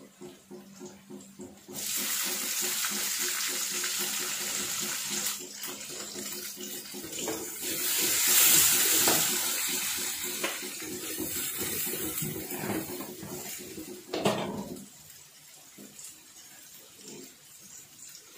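Onions and spices sizzling in hot oil in a steel karahi, the masala being fried as the first stage of a beef curry, with a wooden spatula stirring. The sizzle starts suddenly about two seconds in, is loudest around the middle and dies down near the end.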